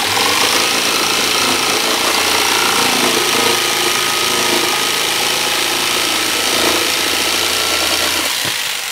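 Corded electric jigsaw running and cutting across a wooden board, a steady loud buzz of motor and reciprocating blade. Near the end the saw is switched off and the motor winds down.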